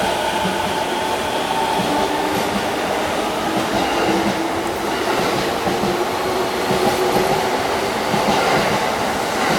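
Keihin-Tohoku Line electric commuter train running along the platform, its wheels clacking over the rail joints over a steady running noise and a faint hum.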